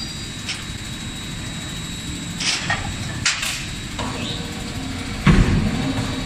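Automatic forging line running: a steady machine hum with a high whine, a few metallic clanks, and one heavy press blow about five seconds in, the loudest sound.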